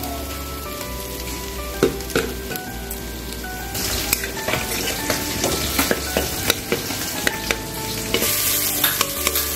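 Boiled potato, beetroot and carrot sizzling in oil in a steel kadai, with two sharp clicks about two seconds in. From about four seconds in a metal spatula scrapes and taps against the pan as the vegetables are stirred and mashed, and the sizzle grows louder.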